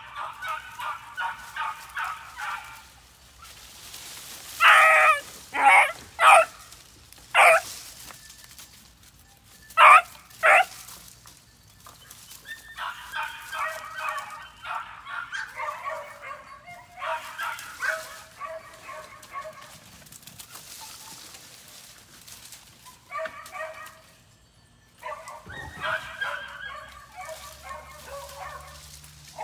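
Puppies yipping and whining in runs of rapid, high-pitched yelps, with six louder single barks between about five and eleven seconds in.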